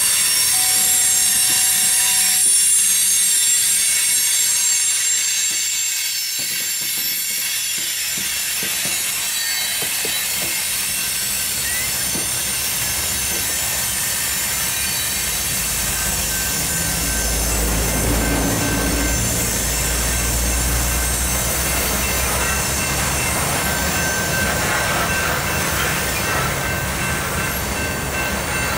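A freight train of steel covered hopper cars rolling past, the wheels squealing with steady high-pitched tones over the clatter and rumble of the trucks on the rails. The low rumble swells for a few seconds past the middle.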